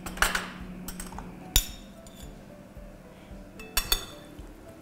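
Kitchenware clinking: a small glass bowl and a metal spoon knocking against a ceramic serving bowl while a dressing is poured over boiled potatoes and the salad is mixed. A few sharp clinks with brief ringing, the loudest about a second and a half in and a quick pair near the end.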